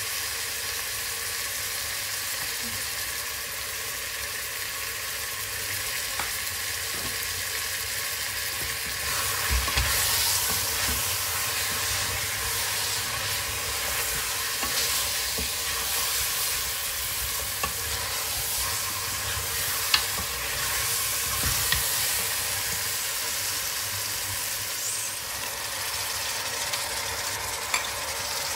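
Meat and onions frying in a pot, a steady sizzle, with a spoon stirring through them from about nine seconds in and a few sharp clicks of the spoon against the pot.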